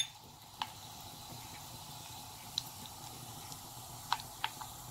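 Mustard and cumin seeds sizzling faintly in hot oil in a kadai, the tempering stage of the dish, with about five sharp pops from seeds spluttering.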